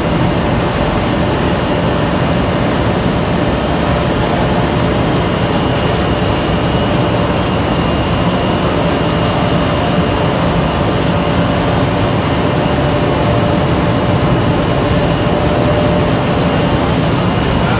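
Salt plant dryer/shaker in operation: loud, steady industrial machine noise with a constant hum and a thin, high whine.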